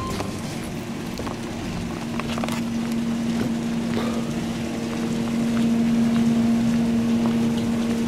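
Steady low machine hum from a small factory's running machinery, growing louder partway through, with a second, higher tone joining it about halfway.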